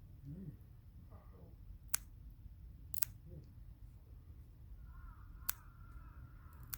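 Nail clippers cutting a cat's claws: four sharp snips, the first about two seconds in and the last near the end. A drawn-out wavering cry starts about five seconds in, over the last snips.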